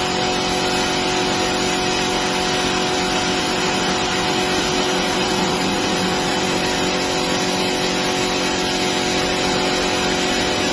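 A machine running steadily, giving an even mechanical drone with a constant hum.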